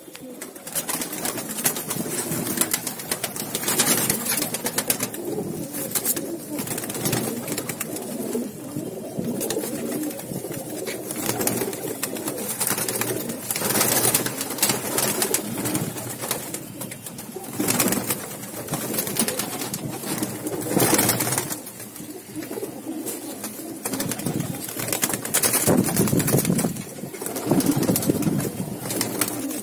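A flock of domestic pigeons cooing, a steady overlapping murmur of many birds, with brief rustles every few seconds.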